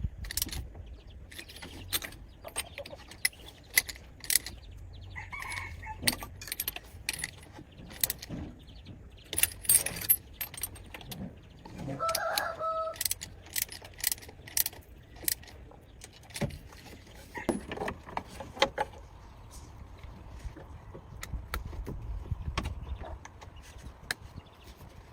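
Scattered metallic clinks and knocks of hand tools and parts being handled, over a low background hum. A short pitched call sounds once about twelve seconds in.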